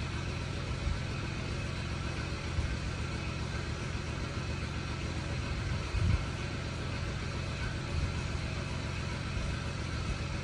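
Steady low background rumble, with a few soft low thumps, the clearest about six seconds in.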